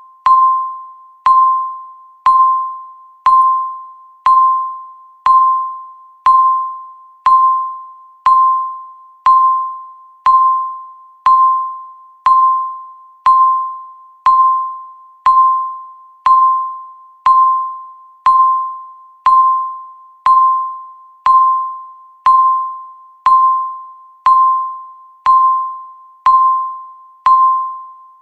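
Countdown timer's electronic beep: one high tone sounded once a second, each beep starting sharply and fading away before the next, ticking off the seconds of the countdown.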